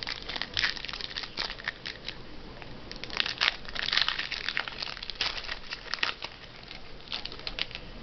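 Wrapper of a trading card pack crinkling and tearing as it is opened and handled, in irregular crackles that are thickest in the middle.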